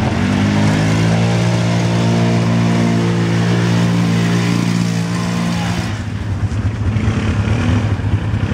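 ATV (quad bike) engine pulling hard through deep muddy water, its revs rising at the start and then holding steady, with water and mud splashing. About six seconds in, the engine note drops away and becomes rougher.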